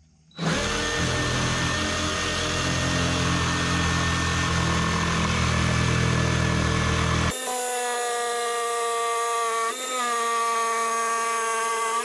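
DeWalt cordless jigsaw cutting through a shed's painted wood siding, the blade rasping loudly through the wood for about seven seconds. Then the rough cutting noise drops away and the saw runs on with a steadier whine that dips once briefly.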